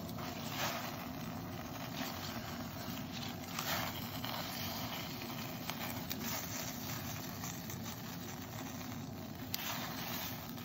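Pot of water boiling on a gas burner, a steady rumble, while spinach is blanched in it. A few brief rustles, about a second in, near four seconds and near the end, as the leaves are pressed down into the water.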